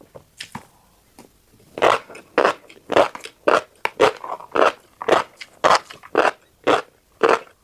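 Close-miked chewing of a mouthful of tiny black seeds: sharp crunches about two a second, starting after a quieter first second or so.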